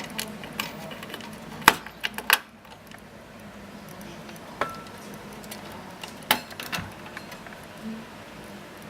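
Scattered sharp clicks and clacks of hard plastic and metal PC parts being handled while a CPU cooler is taken off, with the loudest knocks about two seconds in and again past six seconds.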